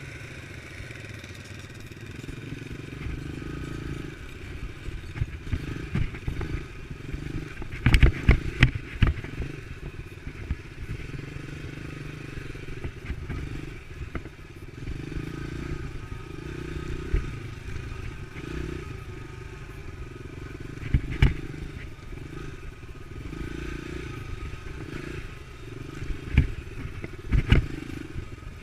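Dirt bike engine running steadily on a trail ride, with loud thumps and clatter from bumps several times.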